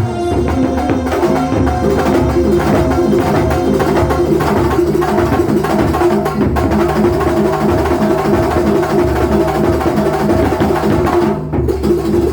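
Kuntulan ensemble music played live: a driving, evenly pulsed beat of hand drums under sustained melodic tones, with a brief break near the end.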